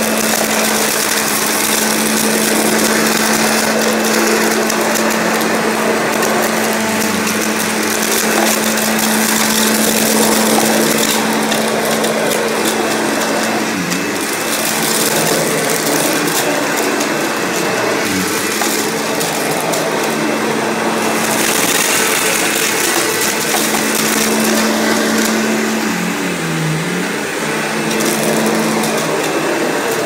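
Kirby G4 upright vacuum running over carpet, its motor humming steadily under a dense crunching and crackling as it sucks up debris. The motor hum dips in pitch briefly a few times, near the middle and again near the end.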